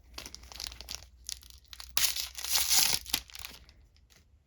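Foil trading-card booster pack being crinkled and torn open, in a run of crackling rustles that is loudest in the middle and fades out near the end.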